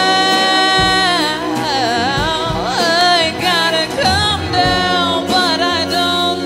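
Female lead vocalist singing with a live band of electric guitars, keyboard and drums: one long held note, then a run of quick bends in pitch, then more held notes.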